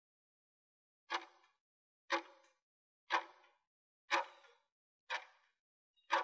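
Countdown timer sound effect ticking once a second, six sharp ticks, each with a short fading tail, starting about a second in.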